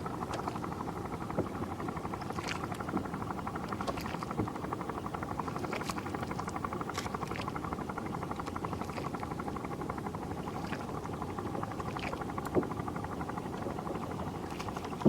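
Boat engine idling steadily, with a few short sharp knocks over it, the loudest near the end.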